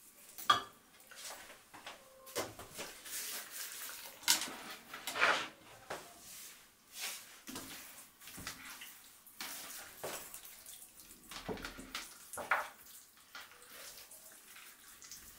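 Hands rubbing salt and olive oil into the skin of a raw whole turkey: irregular slick rubbing and patting strokes, with a sharper pat about half a second in.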